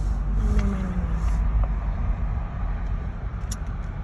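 2020 Hyundai Elantra GT hatchback driving, a steady low engine and road rumble heard from inside the cabin. The engine note drops slightly about a second in.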